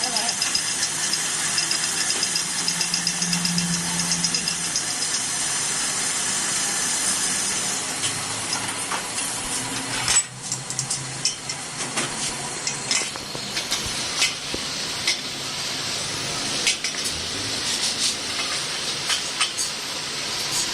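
Metalworking noise from the hub repair: a steady hiss with rapid, evenly spaced ticking for the first several seconds. About ten seconds in it briefly drops, then goes on with irregular sharp clicks and ticks.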